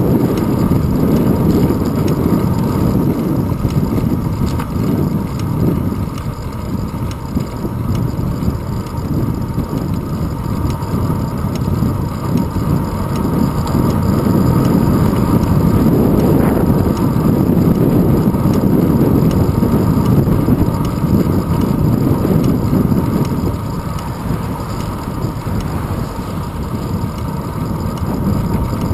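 Steady low rumble of wind buffeting and road noise on a handlebar-mounted GoPro Hero 2 as the bicycle rolls along a paved road, slowly swelling and easing.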